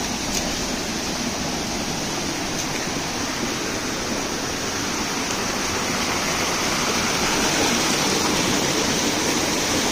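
Hill stream rushing over rocks in a small cascade: a steady rush of water that grows a little louder in the second half.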